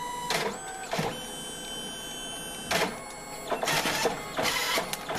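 Photo printer printing and ejecting photo strips: a steady motor whine stops near the start, followed by several short whirring, clattering bursts, most of them in the last two seconds, as the paper is fed and pushed out.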